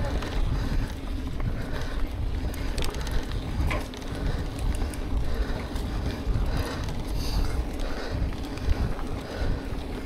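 Wind rumbling on the microphone during a mountain bike ride, with a few small clicks and rattles scattered through.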